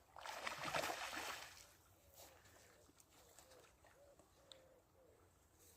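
A brief splash of water lasting about a second and a half, followed by faint, short bird calls.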